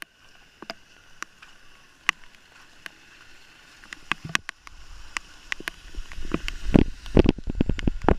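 Rain and splashing water: scattered sharp taps and drips, getting denser from about four seconds in, with heavy low thuds near the end.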